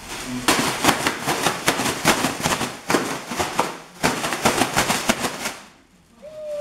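Large black plastic trash bag being shaken and crumpled, giving two long bouts of loud crackling and crinkling with a short gap between them, used as a startle-noise test for puppies.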